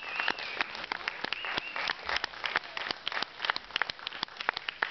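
Audience applauding: many hands clapping irregularly, with a couple of high-pitched calls from the crowd in the first two seconds.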